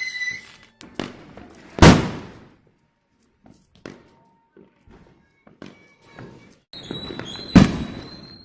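Diwali firecrackers going off: two loud bangs about six seconds apart, each echoing away, with smaller pops and crackles in between.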